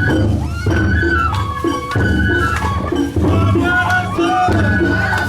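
Japanese festival hayashi music: a high bamboo flute holding and stepping through a melody over steady drumming, with voices mixed in.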